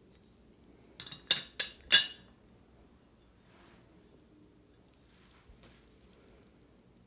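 Bone china teapot clinking as it is handled: four quick, bright clinks about a second in, the last one the loudest, typical of the lid knocking in its seat as the pot is turned. Fainter rustling of handling follows.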